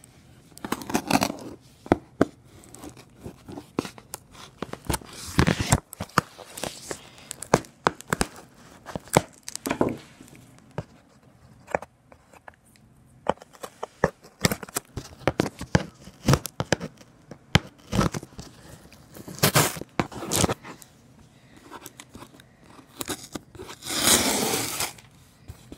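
Hands picking, scratching and tearing at the packing tape and flaps of a cardboard shipping box: irregular clicks, scrapes and short rasps, with a longer tearing rip near the end.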